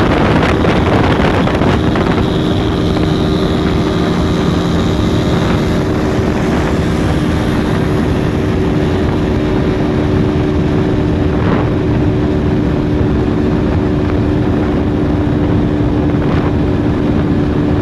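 Single-cylinder 125 cc four-stroke motorcycle engine running on the road at speed. Its note settles to a steady pitch about two seconds in, under heavy wind rush over the microphone.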